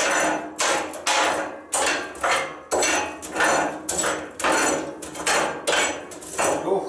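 Ash being scraped and raked out of the steel firebox of a Narvi wood-burning sauna stove, metal scraping on metal in quick repeated strokes, about two a second.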